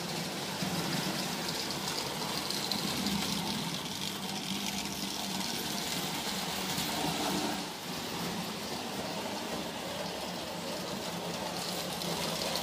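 Prewar Lionel O gauge electric locomotive running on three-rail tinplate track: a steady whirring motor and a rumble of wheels on the rails, swelling as the train passes close.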